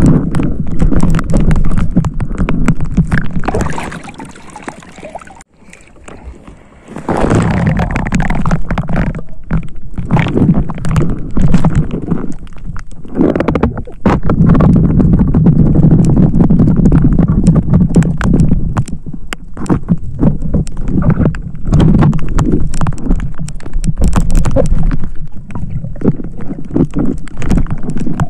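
Sea water sloshing and gurgling close to the microphone, with many small knocks. It drops quieter for a few seconds about four seconds in, then picks up again.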